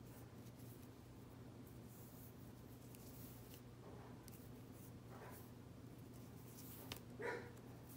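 Faint rustling and rubbing of cotton macrame cord being handled and pulled through half hitch knots, over a low steady room hum. Near the end comes a click and a brief louder sound.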